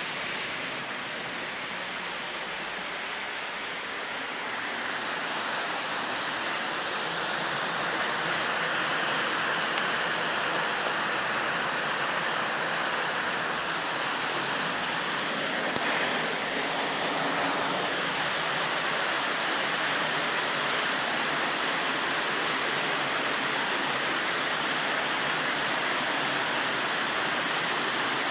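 Waterfall rushing steadily, a continuous roar of falling water that grows a little louder about five seconds in.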